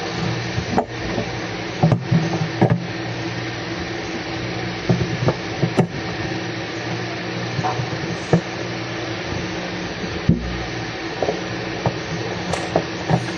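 Irregular clicks and knocks from electrical power outlets being fitted and fastened in place, over a steady mechanical hum.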